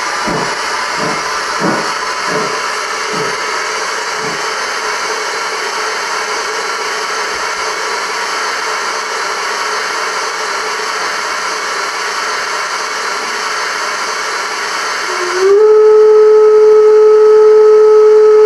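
Sound module of a gauge 1 model BR 50 steam locomotive: exhaust chuffs slowing and dying away over the first four seconds as the locomotive comes to a stand, then a steady steam hiss. Near the end, one long steam whistle of about three seconds, the loudest sound.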